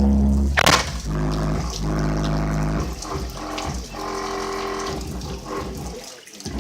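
A Bazooka 12-inch subwoofer in a box playing a song, with a strong, steady bass line under held melodic notes that change about every second.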